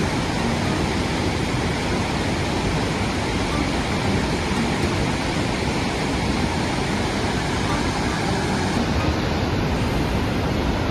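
Steady rushing noise of a torrential rainstorm and floodwater, with no break or change.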